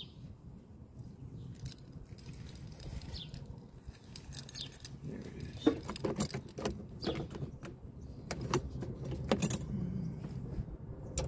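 Small metal tool and parts clinking and tapping irregularly, most busily in the second half: a telescoping magnet pickup and a 10 mm nut being worked into a cramped spot by the brake fluid reservoir.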